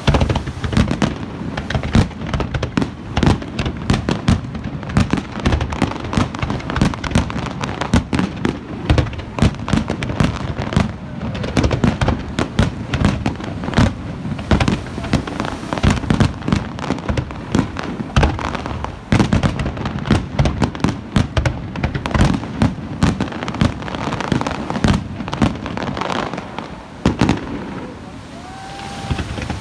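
Fireworks display: a rapid, near-continuous barrage of bangs and crackling bursts. It dies down into a short lull near the end.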